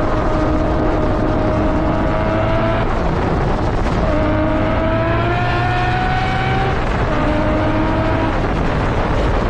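Tuned car engine accelerating hard under load, its pitch climbing in each gear and dropping back at two upshifts.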